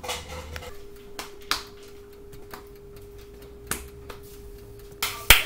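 A steady hum comes in about a second in, with scattered taps and knocks of handling on a stone counter. A sharp click near the end is the loudest sound.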